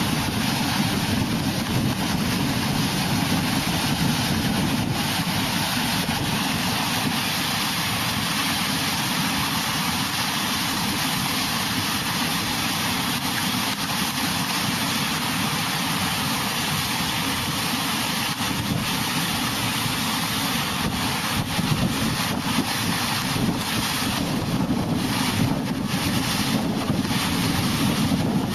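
Steady roar of a rushing flash-flood torrent, with wind on the microphone.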